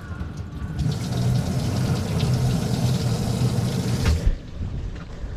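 Boat live-well pump running, with water spraying into the live well over a low motor hum. The splashing starts about a second in and cuts off suddenly near the end.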